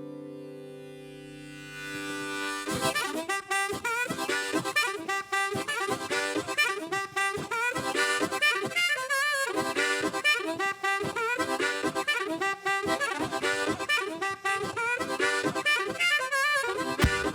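Live music: a chord rings out and fades, then a harmonica comes in about three seconds in, playing a fast, rhythmic riff over the band's intro.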